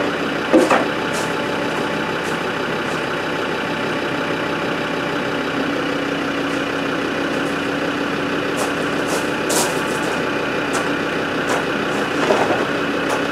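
Land Rover Discovery TD5's five-cylinder turbodiesel idling steadily while the air suspension lifts the rear towards its high ride setting, with a short knock about half a second in.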